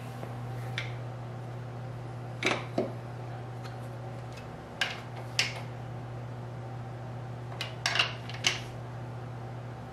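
A handful of sharp metallic clicks and clinks from a wrench being handled at the crankshaft of an engine block on its stand, with a cluster of them near the end. A steady low hum lies underneath.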